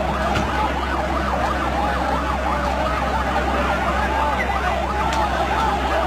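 Emergency vehicle siren sounding in a fast rising-and-falling yelp throughout, over the noise of a crowd and a steady low rumble.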